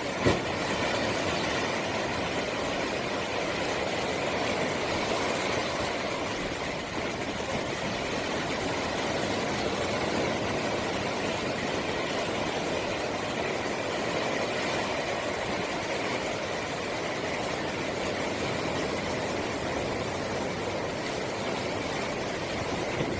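Rough sea after a typhoon: waves breaking and washing in a steady noise, with strong wind, and a brief thump just after the start.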